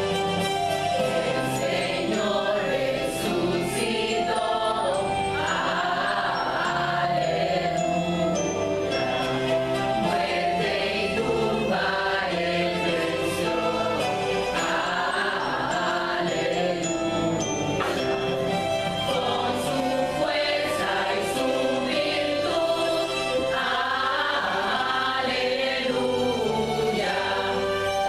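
Women's choir singing a sacred cantata piece over an instrumental backing track.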